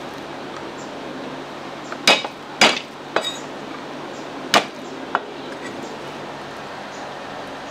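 Five sharp, irregularly spaced knocks of a hard kitchen implement striking a hard surface, the loudest three close together, over a steady background hum.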